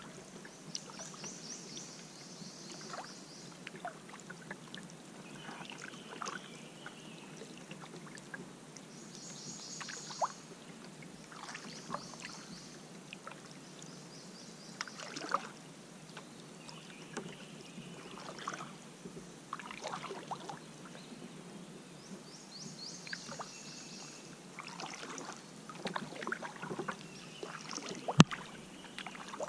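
Kayak paddle strokes dipping into calm river water, with drips and trickles between strokes. Repeated high trilling calls sound in the background, and there is one sharp knock a little before the end.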